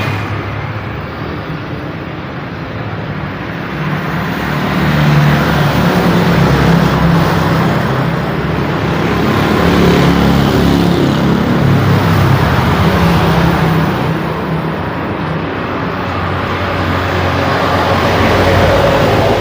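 Busy road traffic: a continuous roar of engines and tyres from buses, trucks, cars and motorcycles passing, swelling as heavier vehicles go by about five seconds in, around ten seconds and near the end.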